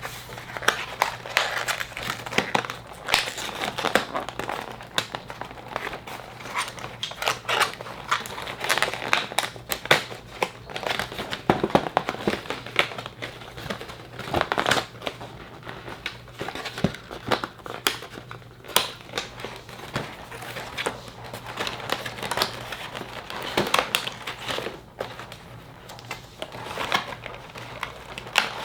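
Plastic and cardboard doll packaging being handled and pulled apart: irregular crinkling and crackling of plastic with sharp clicks and rustles throughout.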